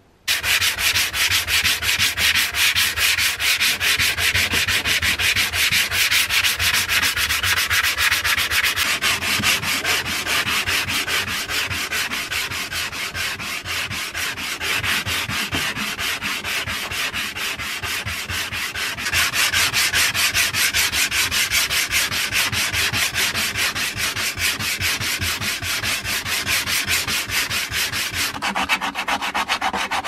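Hand sanding of wood: sandpaper rubbed quickly back and forth in a dense, even run of strokes that starts abruptly. The rasp changes a few times, turning thinner and higher near the end as the sandpaper works a small area.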